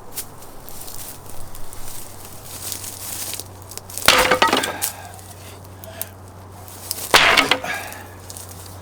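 Two loud crashes of the rotten wooden bench being broken apart, about three seconds apart, with smaller knocks and cracks between them.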